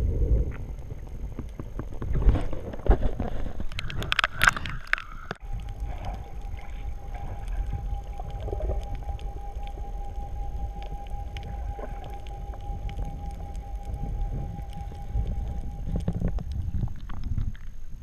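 Water sound picked up underwater by an action camera in its waterproof housing: a low rumble throughout, with splashing and bubbling over the first five seconds. After that a steady high hum runs through most of the rest and stops shortly before the end.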